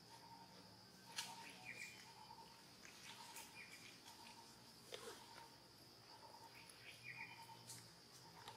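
Faint forest ambience: a steady high insect drone with a short call repeating about once a second, a few brief chirps, and a handful of sharp clicks.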